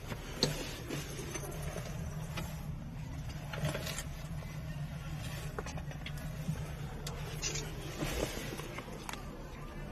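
Steady low mechanical hum inside the steel hull of a Type 82 armoured command vehicle, with scattered light metallic clicks and knocks.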